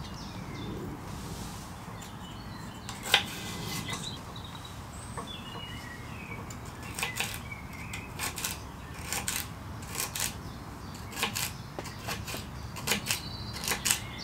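Knife chopping celery on a wooden chopping board: a lone tap a few seconds in, then quick knife strikes on the board from about seven seconds in, coming faster toward the end.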